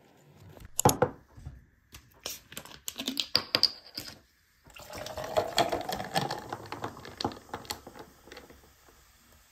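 Plastic carrier bag rustling, then ice cubes clinking into a glass jar. After a brief gap, juice is poured over the ice for about four seconds, with small clinks of the ice throughout.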